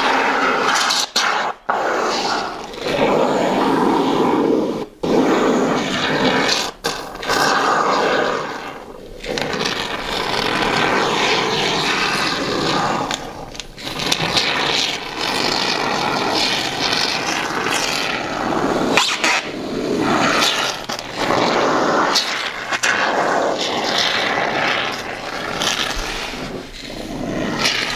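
Expanding spray foam hissing out of a dispensing nozzle into a foundation crack, in long spurts that break off briefly now and then.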